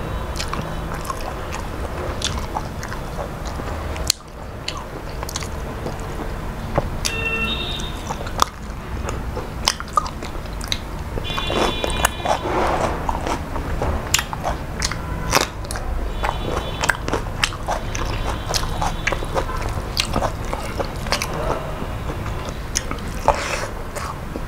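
Close-up chewing and mouth sounds of a man eating rice and chicken by hand: wet smacking and many sharp lip and tongue clicks over a steady low hum.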